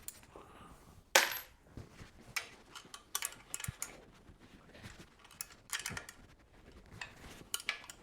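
Metal bed-frame bars and their fixings clinking and knocking as a top bar is worked loose: a dozen or so sharp clicks, the loudest about a second in, with clusters around three seconds, six seconds and near the end.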